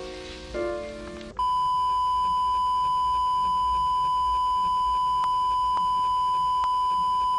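The last few notes of music, then about a second and a half in a steady, unbroken test-tone beep starts: the standard reference tone that goes with TV colour bars. A few faint ticks sit on it.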